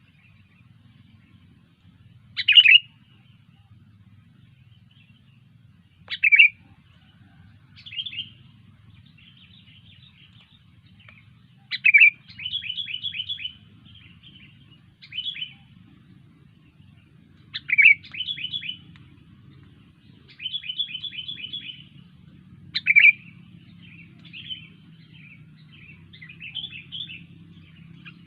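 Sooty-headed bulbul (kutilang) calling and singing: a loud, short call about every five seconds, several of them followed by a quick run of rapid repeated notes, with softer chatter in between.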